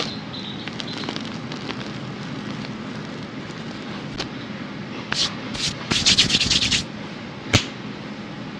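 Hands crushing and crumbling dyed gym chalk blocks (re-formed chalk) into loose powder. A steady dry rubbing runs throughout, with sharp cracks as pieces snap, and a fast run of crackles between about five and seven seconds in.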